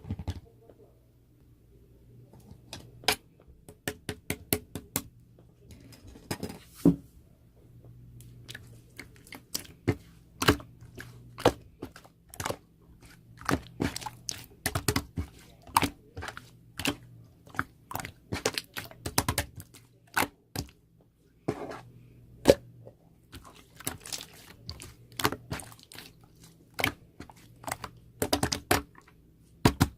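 Irregular sharp crunching clicks and snaps, a few a second with short pauses, over a faint steady low hum.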